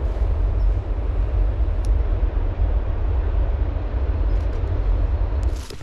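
Loud, steady low rumble with an even hiss above it, ending abruptly near the end.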